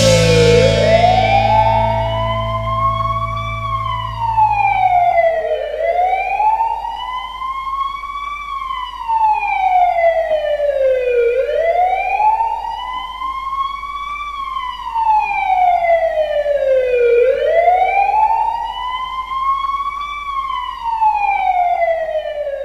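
A siren wailing as part of a hockey goal horn: its pitch climbs slowly, then slides back down, four times at about six-second intervals. A low held chord from the end of the goal music rings under the first wail and cuts off about five seconds in.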